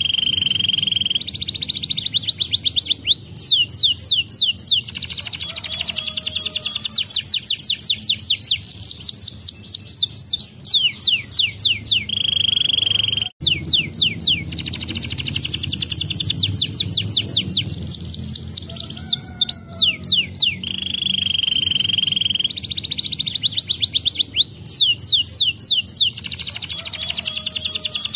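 Domestic canary singing: a long song of rapid high trills, fast rising and falling glides and short held notes, with one brief break a little after 13 seconds.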